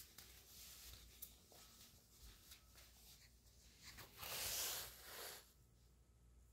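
Near silence: room tone, with a brief soft rustle lasting about a second, about four seconds in.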